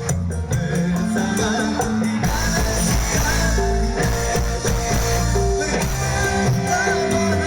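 Live dangdut koplo band music, with a heavy bass line and drums. A melody line with vibrato comes in about two seconds in.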